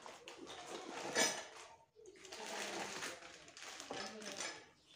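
Cardboard box and paper packaging being handled and rustled while unboxing an angle grinder, with scraping and small clatters and a louder rustle a little over a second in.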